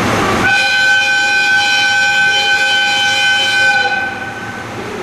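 ED76 electric locomotive's whistle sounding one long steady blast, several tones together, for about three and a half seconds before it fades out, over steady background noise: a departure whistle.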